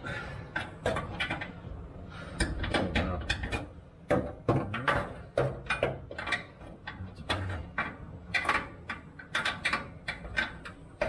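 Irregular metal clicks and knocks of tools and bolt hardware being handled by hand, several a second, with a few short low hums around the middle.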